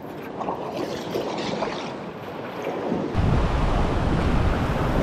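Ocean surf washing over a rock ledge, with wind buffeting the microphone as a low rumble that grows sharply louder about three seconds in.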